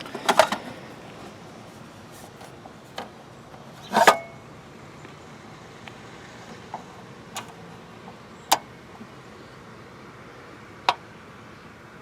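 Scattered sharp clicks and knocks of a battery tester's clamps being handled and clipped onto a lead-acid truck battery for a load test. The loudest knock comes about four seconds in, and single clicks follow at intervals.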